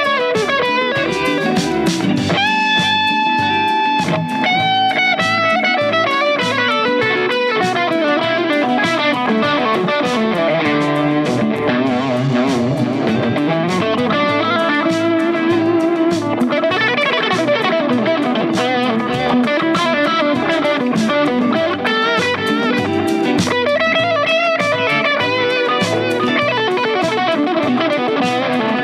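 Custom-built cedar-bodied electric guitar with Malagoli pickups, played through an amplifier with effects. It plays melodic lines that mix a few held notes near the start with quick runs of notes.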